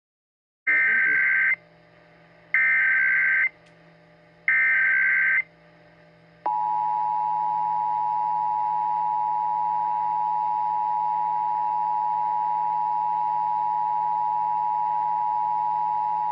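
Emergency Alert System SAME header: three bursts of high-pitched digital data warble, each about a second long with a second between. About six seconds in, the EAS attention signal follows: a steady, loud two-tone alarm at 853 and 960 Hz sounded together, which runs on.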